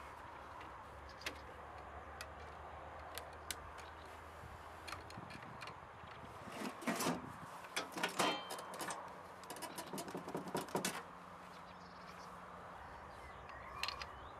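The front cover of an outdoor electrical cabinet is handled and closed, with clunks, rattles and scrapes about halfway through, ending in a quick run of small clicks as it is latched shut. Scattered light clicks before and after.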